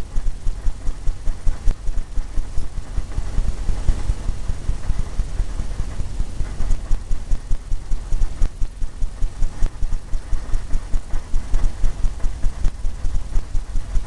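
Paintbrush scrubbing oil paint onto a stretched canvas in quick short strokes, the canvas giving a steady run of low thumps several times a second.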